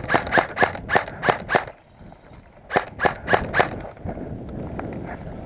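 Airsoft gun firing in quick strings of sharp shots, about five a second. The first string runs through the opening second and a half, and a second short string of about five shots comes about three seconds in.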